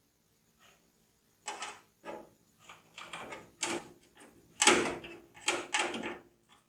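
Hands handling PC parts and packaging: a string of irregular knocks, clatters and scrapes, the loudest about two-thirds of the way in.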